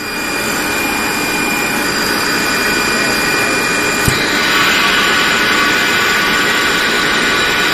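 Campbell Hausfeld rotary screw air compressor starting direct-on-line and coming up to a steady, loud run, with a high whine over the machine noise. A sharp click about four seconds in, after which it runs a little louder as the compressor goes on load.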